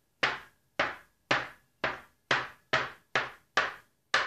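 A blade chopping a log of curd-cookie dough into small pieces, knocking on the countertop with each cut: nine sharp, evenly spaced chops, about two a second.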